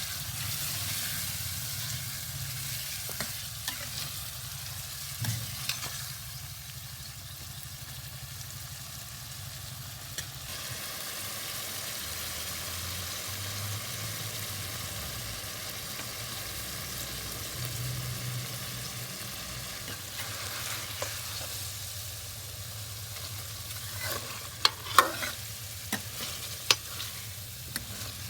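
Food frying in oil in a cooking pot for a chicken curry, a steady sizzle over a low hum, with sharp clicks and knocks of a spoon against the pot, several in a row near the end.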